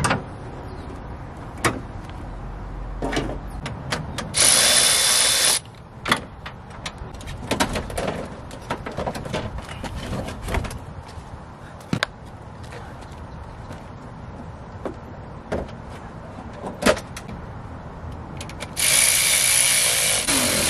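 Clicks, knocks and clatter of a car battery being handled and swapped in an open engine bay. Two short, loud bursts of whirring hiss come about four and a half seconds in and again near the end.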